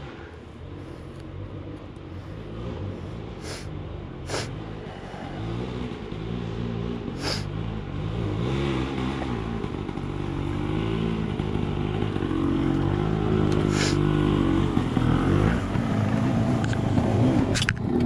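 Off-road motorcycle engine approaching through the woods, growing steadily louder, its revs rising and falling as it rides the trail. A few short sharp clicks are scattered through.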